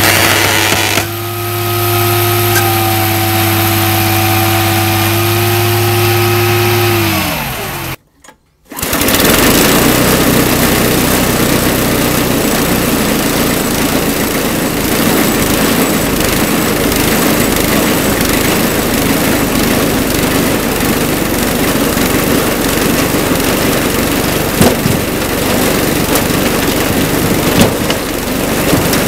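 A machine hums steadily with several fixed tones, then winds down and stops about seven seconds in. After a short break, a small air-cooled engine driving the log conveyor runs steadily for the rest.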